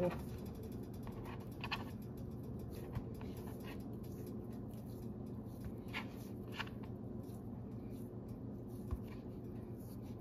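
Soft, faint handling sounds of fingers pinching and pressing soft fresh cheese (chhena) dough and setting the pieces down on a plastic plate, with a few light taps over a steady low hum.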